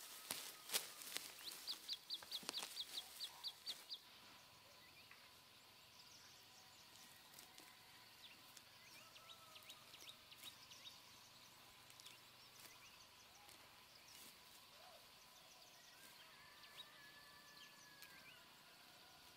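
Hands pulling weeds from dry, stony soil: sharp rustles and snaps through the first four seconds, with a rapid run of high ticks. After that, quiet outdoor ambience with a faint steady high whine and a few faint bird calls.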